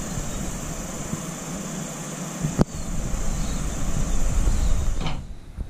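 Wind buffeting the microphone: a loud, gusting low rumble under a steady hiss, with one sharp click about two and a half seconds in. The noise drops away abruptly near the end.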